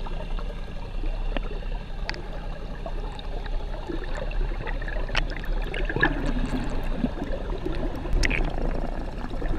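Muffled underwater water noise: a steady rush with scattered clicks and knocks over a constant low hum.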